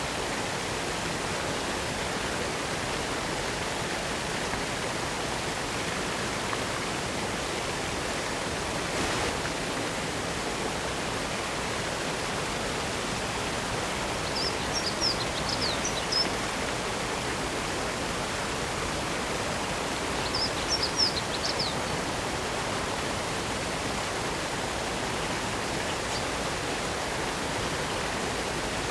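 Steady rush of a waterfall, spring water falling over rock. A small bird twitters twice in short, high bursts of quick falling chirps, about halfway through and again a few seconds later.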